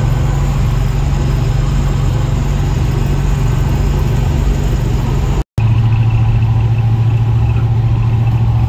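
Car engine and road noise heard from inside the cabin while driving, a steady low drone. It drops out for an instant about five and a half seconds in, where the footage is cut, then carries on the same.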